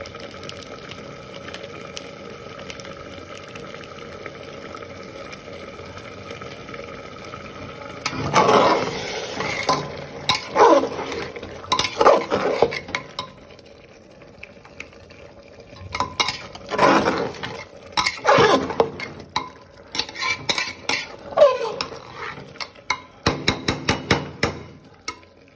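A spoon stirring and scraping mutton, onions and masala around an open aluminium pressure cooker pot, in repeated loud scraping strokes that start about a third of the way in. Quick metallic clinks come near the end. Before the stirring there is a steady low hum.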